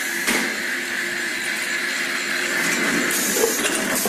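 Sugar cone baking and rolling machine running with a steady mechanical whir. There is a sharp click about a third of a second in and a short hiss near the end.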